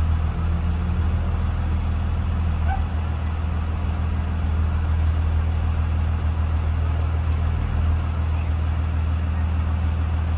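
Blue Bird Vision school bus engine running with a steady, low, even hum.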